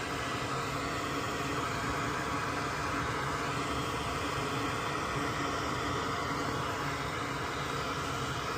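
Soldering fume extractor's fan running with a steady, even whir.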